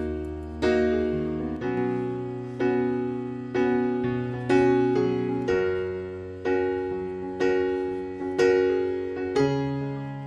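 Background piano music: soft chords struck about once a second, each fading away before the next.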